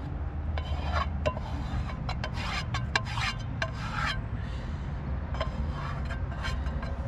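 Utensil scraping food out of a Fire-Maple camping frying pan: a run of short scrapes, thickest in the first half, with a few more near the end.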